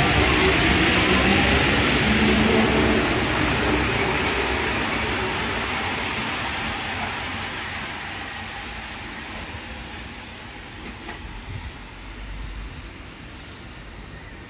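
Paris Métro MP89 CC rubber-tyred train pulling out of the station and running off into the tunnel. Its rolling noise and a rising motor whine at the start fade away steadily as it goes.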